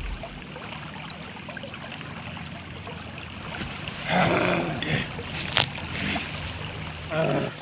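Steady background hiss, then from about halfway a man's wordless grunting vocal sounds, with a sharp click in the middle and a short grunt near the end.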